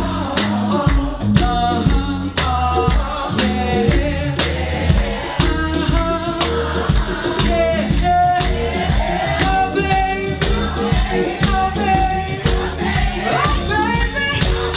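Live soul band playing a steady groove on bass, drums and electric guitar, with a male lead vocal sung over it.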